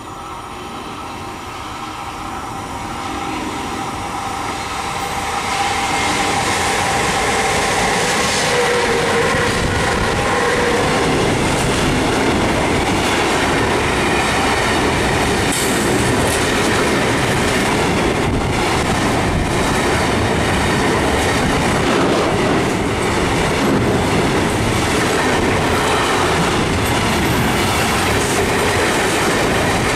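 Intermodal freight train passing close by: the electric locomotive's approach grows louder over the first six seconds. Then the container and tank-container wagons go past in a steady rumble, with repeated clacks of wheels over rail joints.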